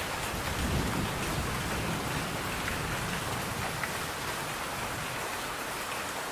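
Steady rain falling, with a low rumble of thunder swelling about a second in.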